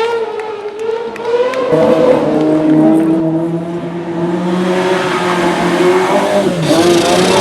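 Rally car engine at full race throttle on a special stage, its pitch rising and dropping with gear changes and lifts of the throttle.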